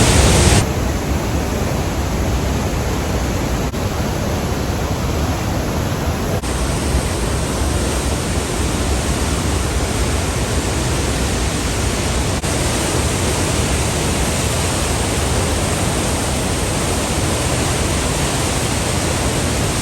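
Floodwater of the Bagmati River rushing through the Chobhar gorge after a night of heavy rain: a loud, steady noise of fast-moving water.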